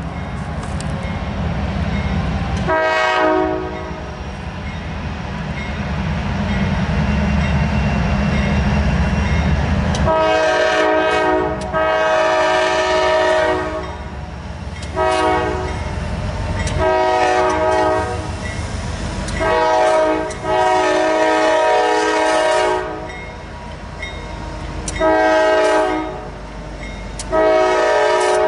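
Air horn of a CSX ES44DC diesel locomotive sounding a series of blasts, short and long, for a grade crossing, ending in the long-long-short-long crossing signal. Under it runs the rumble of the diesel locomotives, loudest in the first ten seconds as they approach.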